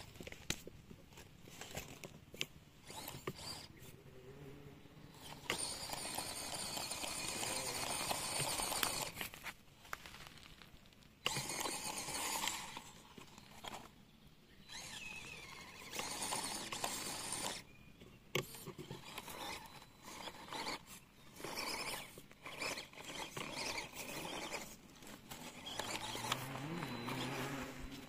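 Small electric motor and gearbox of a 1/24-scale FMS FCX24 Power Wagon RC crawler whining in short start-stop bursts as it drives. The pitch rises and falls with the throttle near the end.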